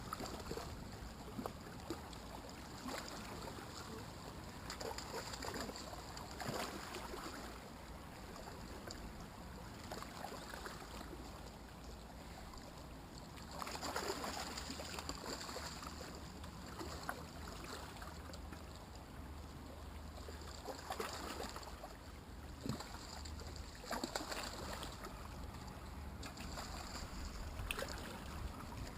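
Steady noise of moving water and wind, with brief splashing and rustling sounds every few seconds.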